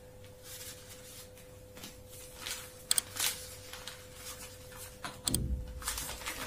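A folded paper packet rustling and crinkling as it is handled and opened by hand, in short scattered strokes. A couple of sharp paired clicks come just before halfway and again about five seconds in, with a soft low thump near the end, over a faint steady hum.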